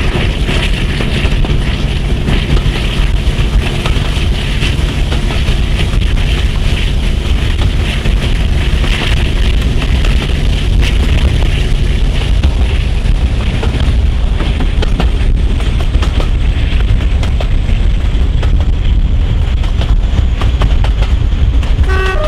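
Class 42 Warship diesel-hydraulic D821's twin Maybach engines working the train, heard from an open coach window with wind rush and wheel-on-rail running noise. A horn begins to sound at the very end.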